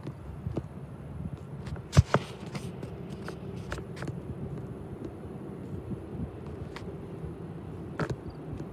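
Steady low rumble of an approaching freight train's diesel locomotives, still out of sight. A few sharp clicks and scrapes stand out over it, the loudest about two seconds in and another near the end.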